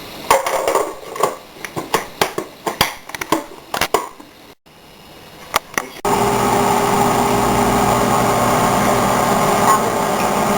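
Clicks and knocks of a container being handled and closed for the first few seconds. Then, about six seconds in, a microwave oven starts and runs with a steady hum.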